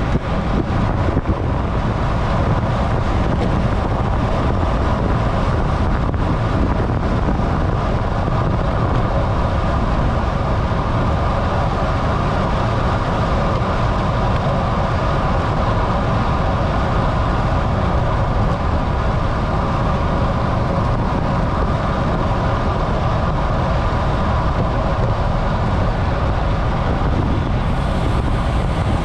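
Steady wind rush over a bike-mounted camera's microphone from a road bike riding at over 30 mph, mixed with tyre noise on the asphalt.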